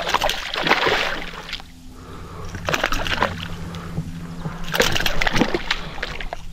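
A hooked blue peacock bass thrashing at the water's surface, splashing in several irregular bursts as the landing net scoops it up.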